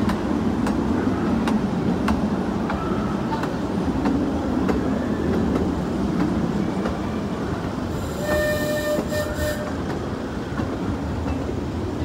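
Rail vehicle rolling along its track: a steady rumble with scattered clacks, and a brief high-pitched squeal or tone at about eight seconds.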